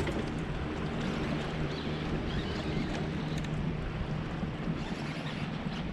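Steady wind and water noise on an open boat, with a faint low steady hum underneath and a few faint clicks.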